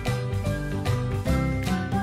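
Background music: a bouncy tune of short changing notes over a bass line.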